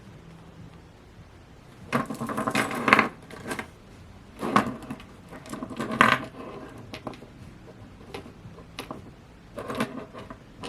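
Handling noise from unboxing a Funko Pocket Pop! vinyl keychain and its packaging: several short bursts of rattling, crinkling and clicking, the longest about two seconds in.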